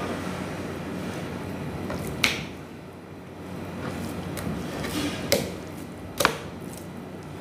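Raw beef being handled and turned on a plastic cutting board: three short sharp knocks and slaps, about two seconds in, after five seconds and again near six, over a steady background hum.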